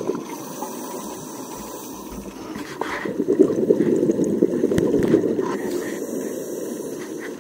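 Bubbling and hiss from a scuba diver's regulator heard underwater: an exhaled breath about three seconds in sends a louder burst of bubbles that tapers off near the end.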